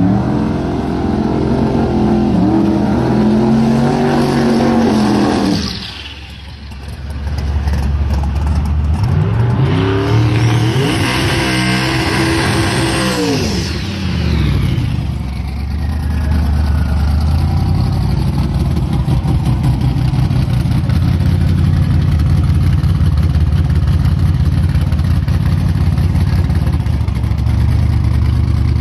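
Drag race car engines revving hard and accelerating in the first few seconds, then a race car's engine rising and falling in pitch as it comes up close from about ten seconds in. From about sixteen seconds it settles into a steady, loud, low idle.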